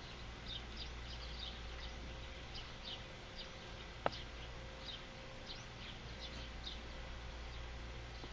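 Faint, scattered high-pitched chirps in the background at an irregular pace, with a single sharp click about four seconds in, over a low steady hum.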